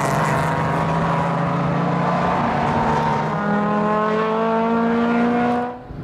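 Historic race car engines running at full throttle on the track, one engine's note climbing slowly in pitch as the car accelerates. The sound cuts off abruptly near the end.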